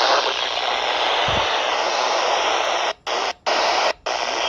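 Weather radio static: a steady loud hiss with no voice, the signal cutting out briefly three times near the end.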